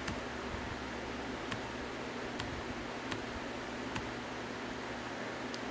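Steady room-tone hiss from the recording microphone, with a handful of faint, sharp clicks roughly a second apart.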